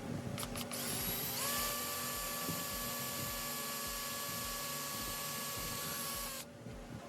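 A few clicks, then a small power tool's motor spins up about a second in, runs at a steady whine for about five seconds and switches off near the end.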